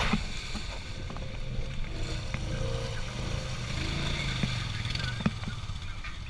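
Off-road ATV or side-by-side engine running steadily, with a couple of sharp knocks, one at the very start and one near the end.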